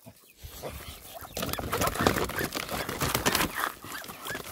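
A plastic crate clattering and scraping on gravelly ground as it is brought down over a Muscovy duck, a dense run of rustles and small knocks that starts about a second in and eases near the end.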